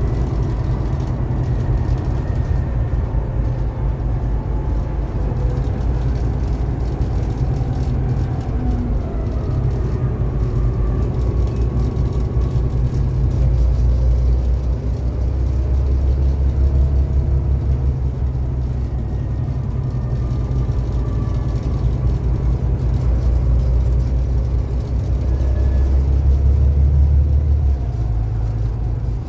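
Volvo B7TL double-decker bus heard from inside on the move, its engine giving a deep drone with road and body noise. The drone swells louder twice and drops back shortly before the end.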